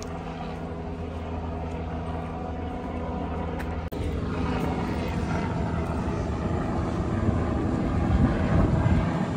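Steady engine hum of an idling vehicle. After a sudden cut about four seconds in, a louder, noisier running sound beside a METRO light-rail train at the platform, slowly growing louder.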